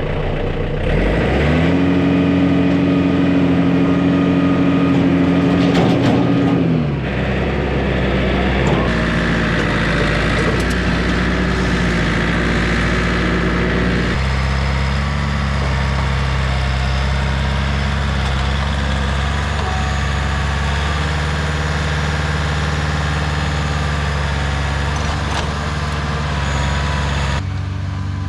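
Heavy vehicle engine revving up about a second and a half in, held at high revs for about five seconds, then dropping back and running on steadily with a couple of changes in speed.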